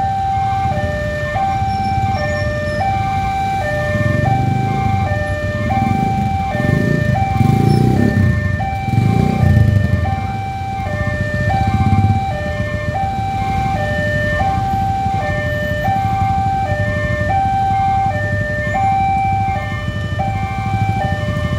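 Railway level-crossing warning alarm sounding a repeating two-tone high-low electronic chime, about one cycle a second, signalling that a train is approaching. Under it, the engines of waiting road traffic are heard, louder from about four to twelve seconds in.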